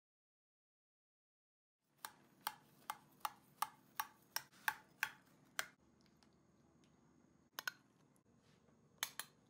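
Dead silence for about two seconds, then a run of about ten sharp, evenly spaced taps, about three a second, followed by faint room tone with a double tap and a couple more taps near the end.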